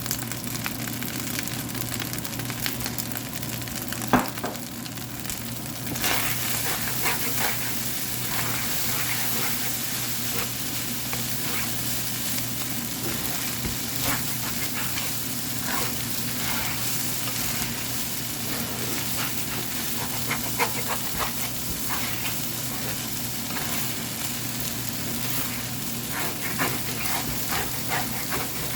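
Fried rice sizzling in a hot pan as it is stirred, with spatula scrapes and taps against the pan. There is one sharp knock about four seconds in, and the sizzle gets louder about six seconds in.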